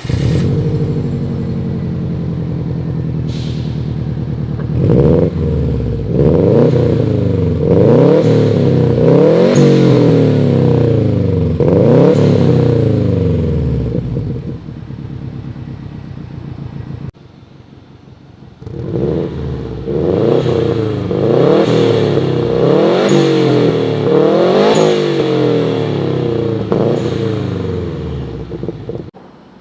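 Subaru Forester XT's turbocharged EJ205 flat-four through an aftermarket DAIANDONG mid and rear exhaust, idling and then blipped repeatedly, each rev rising quickly and falling back. The revving comes in two runs, with a short quieter idle a little past the middle.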